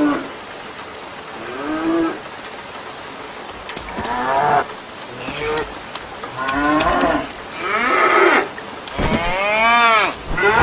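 Cows mooing again and again, the calls getting louder and coming closer together toward the end, over a steady hiss of rain.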